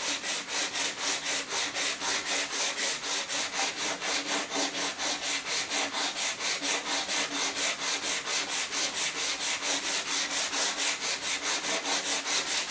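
A Mat Smoother cutting-mat cleaner scrubbed back and forth over a cutting mat: a steady, rhythmic scraping at about four strokes a second. The strokes lift quilt-batting lint out of the mat's surface.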